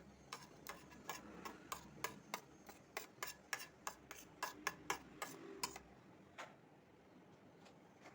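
A run of sharp, regular taps, about three a second for some five seconds, then one more after a short pause.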